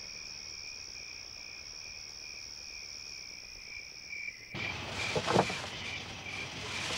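Night chorus of crickets and other insects: a steady high trill and a pulsing chirp. About four and a half seconds in, the trill cuts off and rustling cloth with a few knocks of wood begins as a rolled flag and wooden boards are pulled from a car's hatch, the chirping going on underneath.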